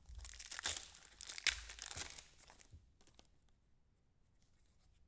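Foil wrapper of a trading-card pack being torn open and crinkled for about two and a half seconds, then faint handling ticks.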